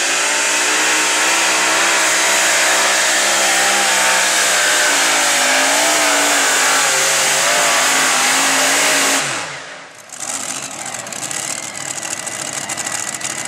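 Modified pulling tractor's supercharged engines running at full throttle under load, the pitch wavering up and down as it pulls. About nine seconds in the engines drop off sharply with a falling pitch. Then comes a lower, rougher engine sound with rapid crackling.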